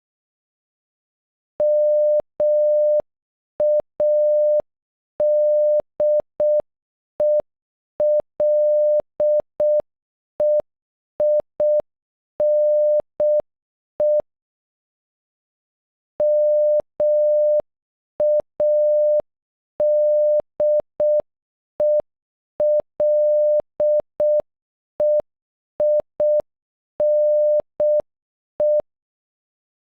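Morse code for "MADELEINE" (-- .- -.. . .-.. . .. -. .) sent at half speed as a single steady beep tone, short dots and longer dashes. The word is played twice, with a pause of about two seconds between.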